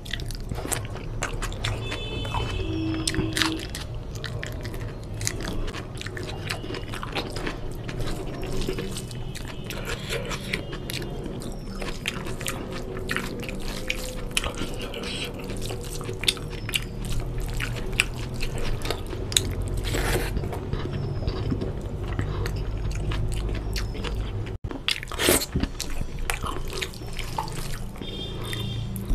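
Close-up eating by hand: wet chewing and lip-smacking with many sharp mouth clicks, and fingers squishing and mixing soft biryani rice on the plate.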